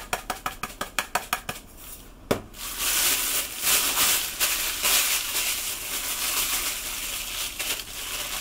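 Pepper mill being twisted, a quick run of clicks about six a second, stopping after about a second and a half. A knock follows, then from about three seconds in a steady rustling and squishing as chicken breast strips are kneaded by hand with their seasoning.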